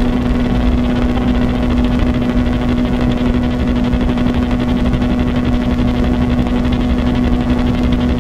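Live experimental drone music from electronics and effects-processed electric guitar: one loud, unchanging low tone held over a dense, rumbling, grainy noise texture, with no beat.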